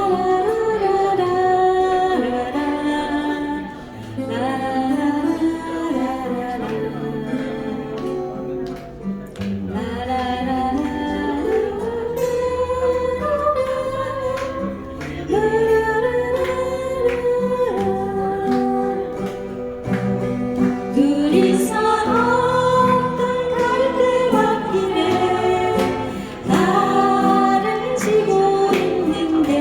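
A female vocal trio singing a slow ballad to acoustic guitar accompaniment.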